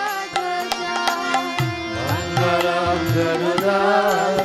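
Instrumental passage of kirtan music: steady held harmonium notes under hand-drum strokes, with a wavering melody line coming in about halfway through.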